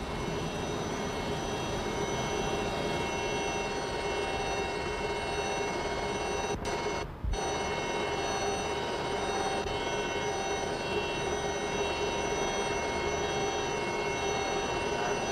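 Formula One car engines running at steady, unchanging pitch, several tones sounding together. The sound dips briefly about seven seconds in.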